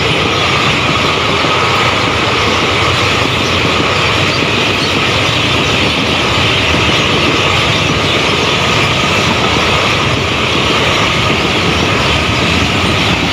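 Railway parcel vans passing close by at speed: a steady, loud rush of steel wheels rolling on the rails.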